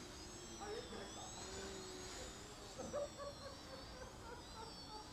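Small electric motors of several ultra-micro RC planes whining at once, each pitch rising and falling as the throttle is worked to hold the planes hovering.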